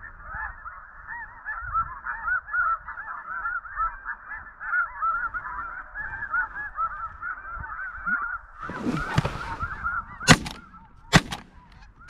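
A dense chorus of snow goose honks, then a brief rustle, then a shotgun fired twice about a second apart near the end, with a third shot right at the close.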